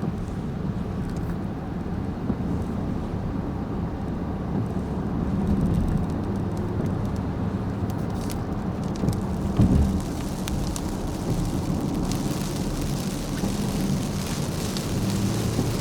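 Car running steadily with engine and road noise. A brief low thump about nine and a half seconds in. Raindrops start pattering more thickly on the vehicle near the end.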